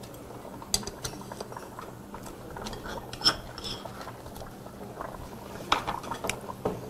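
Metal tongs clinking and tapping against a ceramic bowl and a steel hot pot as ramen noodles are tipped into the shabu-shabu broth, with one sharp ringing clink about three seconds in.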